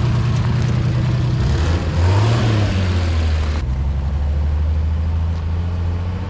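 Motor vehicle engine running at a steady low pitch, with tyre and road noise from a dirt road. Its pitch rises and falls briefly about two seconds in, and the road noise drops away abruptly a little past halfway.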